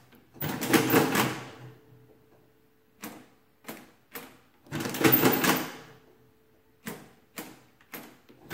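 Victor manual adding machine in use: single key presses clicking in short groups, each followed by a pull of the hand crank that sets off about a second of busy clattering from the adding and printing mechanism, with a faint ringing tone lingering after each pull. This happens twice, and a third crank pull starts at the very end.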